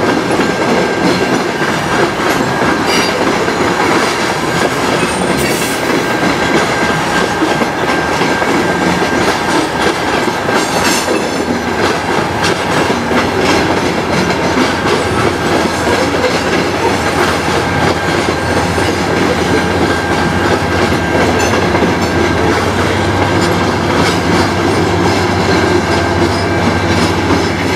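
Freight train of covered hopper cars rolling past: a steady rumble and clatter of wheels over the rail joints, with a thin, steady high squeal. In the last several seconds the low drone of a mid-train diesel locomotive builds as it comes by.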